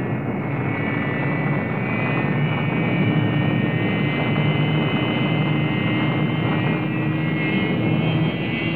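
Spaceship rocket engines firing for lift-off: a loud, steady rush of noise with a high whine over a low hum.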